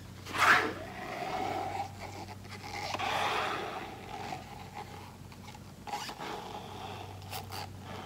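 Acrylic pour paint sliding out of a flip cup as it is lifted off the canvas and tipped along it. A short wet rush comes about half a second in as the cup comes free, followed by a few seconds of soft, uneven, scraping flow that fades away.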